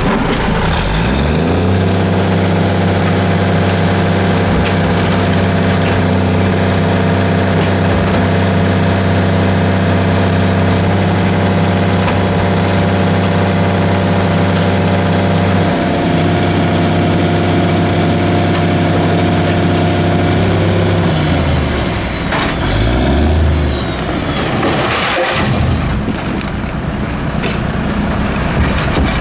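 A 1982 American LaFrance CTC garbage truck's diesel engine revs up about a second and a half in and holds at a steady raised speed, dipping slightly about halfway, then drops back toward idle about three-quarters of the way through. The run-up is typical of the engine being held at high idle to drive the Heil Formula 7000 side-loader's hydraulic arm. Near the end come a few knocks and a noisier clatter as the arm handles a can.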